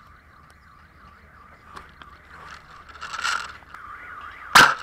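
Scoped airsoft sniper rifle firing once near the end, a sharp crack followed a moment later by a second short click. Before it there is a rustling scrape about three seconds in, over a steady warbling tone in the background.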